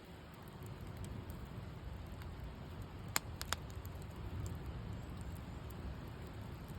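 Campfire burning: a steady low hiss with a few sharp crackling pops from the wood a little over three seconds in.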